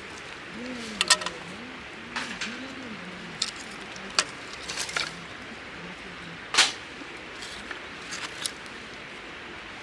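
Sharp, irregular clicks and clinks of small objects being handled, the loudest about a second in and about six and a half seconds in, over a steady background hiss.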